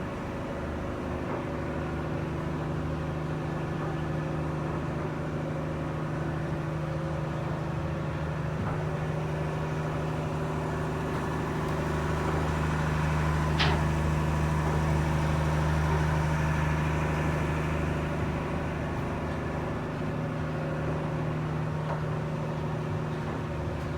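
A boat's engine running steadily with an even hum. It grows a little louder about halfway through, and there is one short click near the middle.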